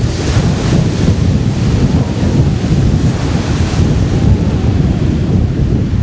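Wind buffeting the microphone in a loud, uneven low rumble, with waves washing on the shore under it.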